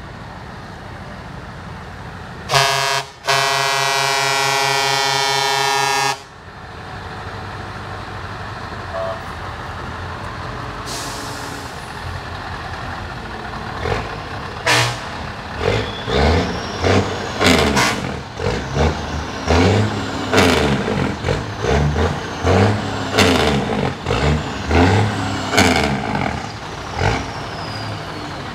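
Truck air horn giving a short toot and then a long, steady blast of about three seconds, over the rumble of truck engines. A brief hiss of air comes a little before halfway. From about halfway on, a rapid string of short loud honks and blasts follows, about one a second.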